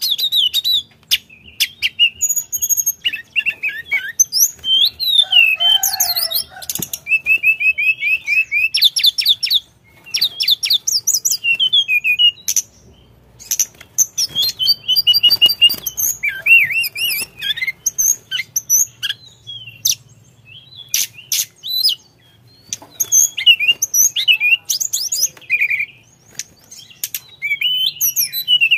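A caged blue flycatcher (tledekan) singing in full voice: a long run of varied, rapid high whistled phrases, quick trills and twitters, with short pauses between bouts, the longest about ten seconds in.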